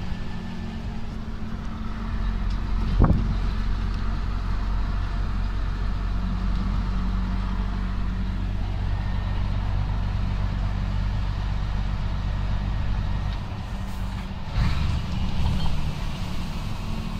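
Semi-truck's diesel engine running steadily while driving. There is a sharp knock about three seconds in, and a brief noisy burst near the end as the engine note drops.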